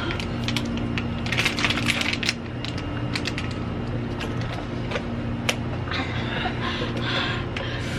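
Light clicking and clattering, with two short stretches of breathy hiss, over a steady low hum.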